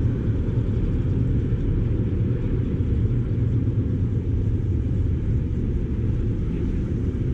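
Wind buffeting the camera's microphone: a steady low rumble with no distinct events.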